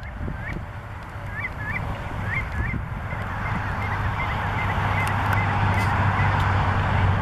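A shorebird calling repeatedly in short, hooked notes, mostly in pairs, growing fainter after about three seconds. Steady highway traffic noise runs underneath and grows louder toward the end.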